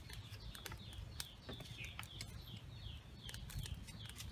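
A bird chirping over and over in short falling chirps, a few a second, with scattered sharp crackles from the wood fire burning under the pot.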